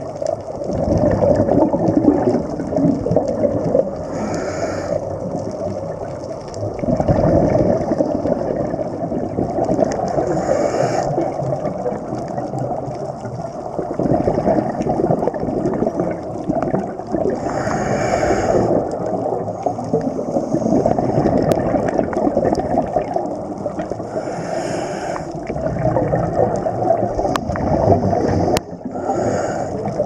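Scuba diver breathing through a regulator underwater: a sharp hiss of inhalation five times, roughly every six seconds, over a steady bubbling rumble of exhaled air and water against the camera housing.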